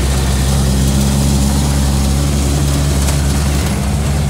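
Small bus's engine running steadily with a low drone as it drives, heard from inside the cabin.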